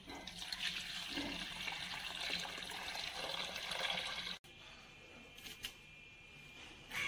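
Water pouring and splashing from a vessel into a steel bowl full of moringa leaves for about four seconds, then cutting off abruptly, leaving a much quieter background.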